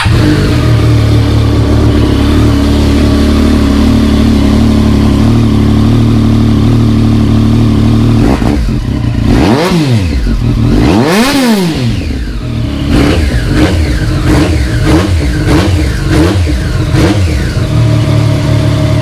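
Triumph Street Triple S three-cylinder motorcycle engine idling through an aftermarket Yoshimura carbon slip-on exhaust, revved hard twice about ten seconds in, each rev rising and falling, then given a quick string of short throttle blips before settling back to a steady idle.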